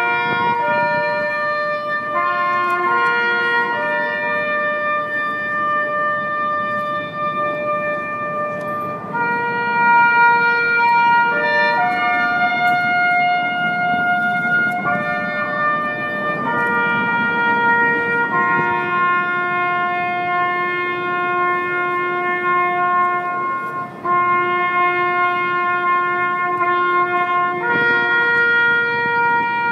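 A slow melody of long held notes played on a brass instrument, each note lasting a few seconds, over a low steady crowd hum.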